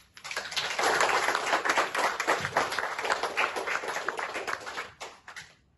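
A small group of people clapping for about five seconds, dying away near the end.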